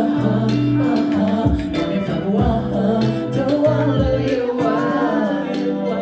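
Live song performance: a male vocalist singing into a microphone over amplified music with sustained bass notes and a low drum thump about once a second.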